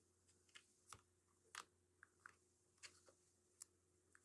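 Near silence broken by about eight faint, scattered small clicks and taps as a laptop's replacement battery and its parts are handled and set in place.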